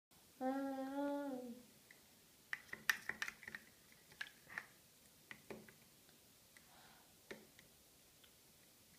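A short hummed vocal note, about a second long, at the start. Then a metal teaspoon clicks and scrapes irregularly against a small plastic yoghurt pot as a baby spoons out yoghurt.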